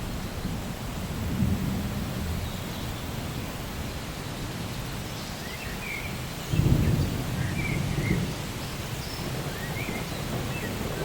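Steady rain with low rumbling thunder; a louder roll of thunder comes in a little past halfway.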